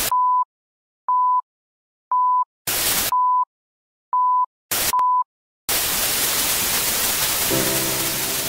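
Film-leader countdown sound effect: a short steady beep once a second, six times, cut between brief bursts of TV static hiss. From about five and a half seconds in the static hiss runs on unbroken, and low musical tones come in under it near the end.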